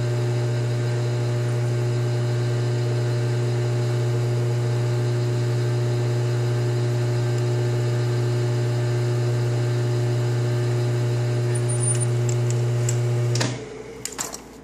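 Metal lathe running at its slowest speed, about 70 RPM, with a steady motor and gear hum while a chambering reamer cuts a .308 Winchester chamber in a rifle barrel. The hum stops abruptly near the end, followed by a few light clicks.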